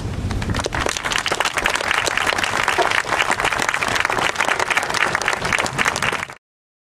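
Audience applauding, with dense clapping that starts about half a second in and cuts off abruptly near the end.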